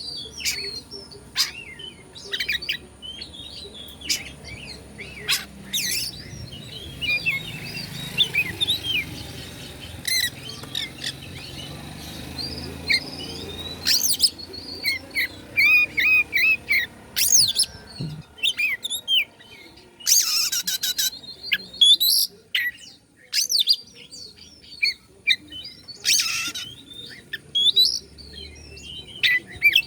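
Oriental magpie-robin (kacer) singing: a varied stream of whistles, chirps and quick trills, broken by harsh scratchy notes that come loudest about twenty seconds in.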